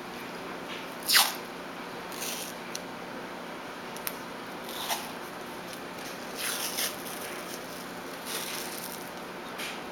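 Adhesive athletic tape being pulled off its roll and wrapped around a wrist, in several short ripping pulls, the loudest about a second in.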